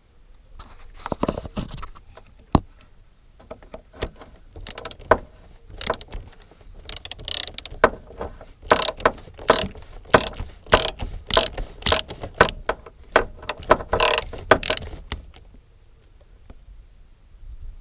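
Hand tools at work, with a ratchet clicking in short strokes amid irregular metallic clicks and rasps; it stops a couple of seconds before the end.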